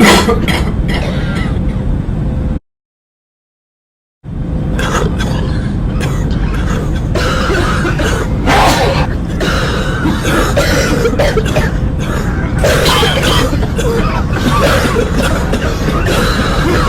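Several people coughing and clearing their throats over and over, over the steady low drone of an airliner cabin. About two and a half seconds in, the sound cuts out completely for about a second and a half.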